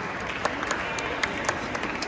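Light, scattered clapping from a few spectators in an echoing sports hall, with faint voices behind it.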